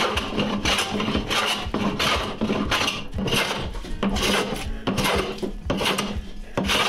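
Metal bench hand plane shaving the edge of a wooden board, in a quick run of strokes about one every half second.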